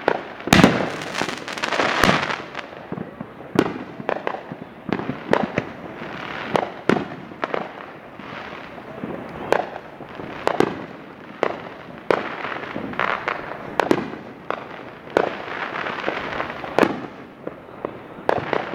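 Firecrackers and fireworks going off all around in dozens of sharp bangs and pops at irregular intervals, over a steady crackle of smaller firecrackers.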